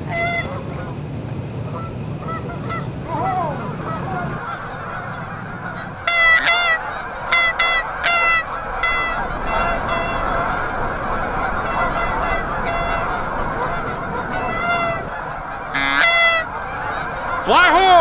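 A large flock of geese honking, many calls overlapping in a constant din. Louder, closer honks stand out from about six seconds in and again near the end.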